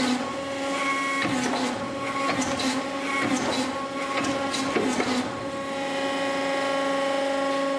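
Hydraulic forging press running with a steady hum and whine. Its tone shifts a few times, with short knocks, as the rounded dies close on a hot steel bar.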